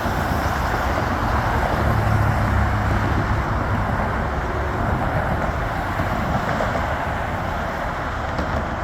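Steady road traffic noise at a busy intersection, with the low hum of a vehicle engine strongest about two seconds in.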